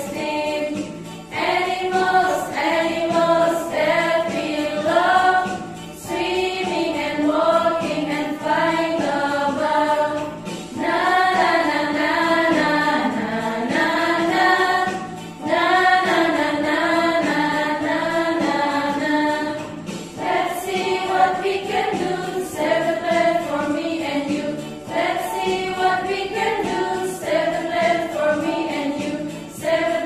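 A group of women singing a preschool song together, in phrases with short pauses between them.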